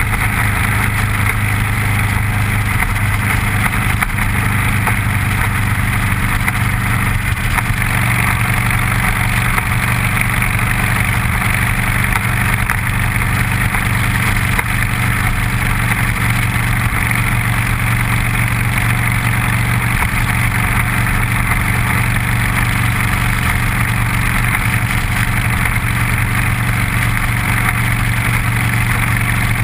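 Motorcycle engine running at a steady cruising speed, heard from a bike-mounted camera with steady wind rush over the microphone.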